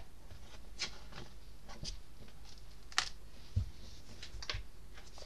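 Pages of a large illustrated book being turned, then the book closed and handled: scattered light paper rustles and clicks, with a soft low thump a little past halfway.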